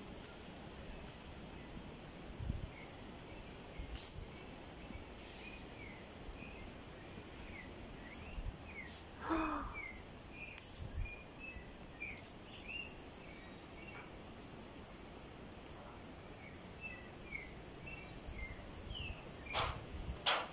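Birds chirping, with many short high calls scattered over a faint outdoor hiss. A louder falling call comes about nine seconds in, and a couple of sharp clicks near the end.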